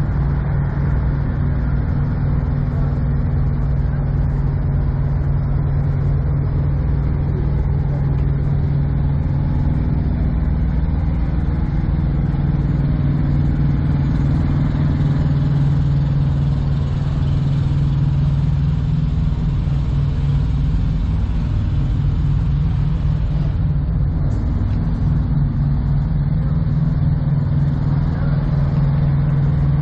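Semi truck diesel engine idling: a steady low drone with a fine, even pulsing, holding the same pitch throughout.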